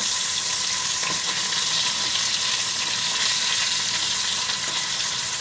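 Marinated fish steaks shallow-frying in hot oil, a steady loud sizzle, with light scrapes and knocks of a steel spatula as the pieces are turned to fry the second side.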